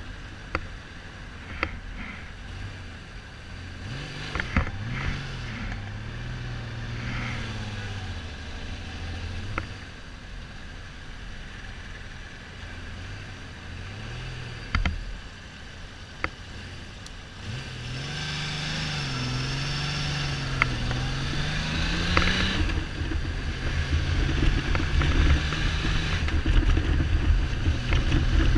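Kawasaki Z1300's inline-six engine running on the move, its revs rising and falling several times and loudest in the last ten seconds, with wind noise on the microphone and scattered rattling clicks. The engine is not running on all cylinders, a misfire the owner puts down to the carburettors or spark plugs.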